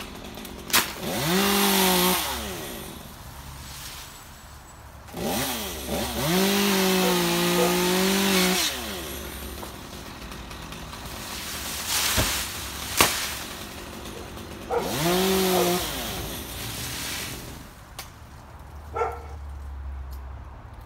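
A chainsaw revving up three times in bursts of one to three seconds as it cuts palm fronds, dropping back to idle between cuts. There are two sharp knocks in the middle.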